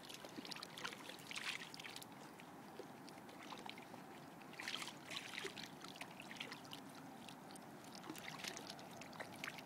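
A Siberian husky's paws and muzzle splashing lightly in shallow river water, with small trickles and clicks and a few louder splashes about a second and a half in, around five seconds in, and near the end.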